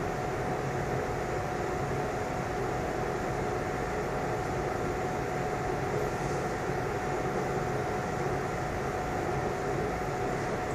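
Steady mechanical hum and hiss with a constant mid-pitched tone, unchanging throughout.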